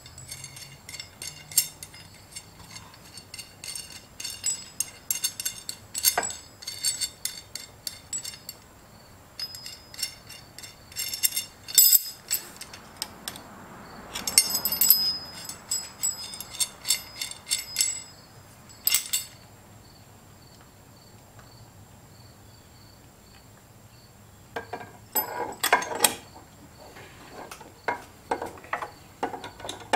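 Steel nuts and a washer clinking and rattling on a threaded rod as it is handled and slid through a power steering rack housing: scattered bright metallic clicks with a brief ring, in clusters, a quieter stretch of a few seconds past the middle, then more clinks near the end.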